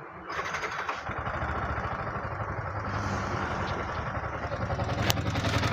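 Yamaha R15 V3 single-cylinder engine starting about a third of a second in and then idling steadily, with a sharp click about five seconds in. It carries a 'tick tick tick' ticking typical of valve tappet noise, the fault the mechanic is chasing.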